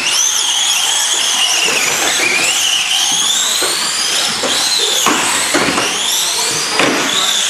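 Several electric radio-controlled model cars racing, their motors whining high and gliding up and down in pitch as they speed up and slow down. A few knocks come in the second half.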